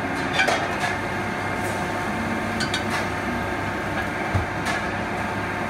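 Steady machine hum of a commercial kitchen with a conveyor grill running, and a few scattered light clicks and clinks of metal utensils.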